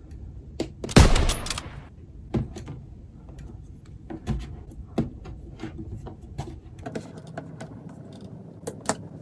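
A memory (RAM) stick being pressed into a motherboard's DIMM slot: a loud sharp snap about a second in as it seats and the retention tabs close, then scattered lighter clicks and knocks of plastic parts being handled.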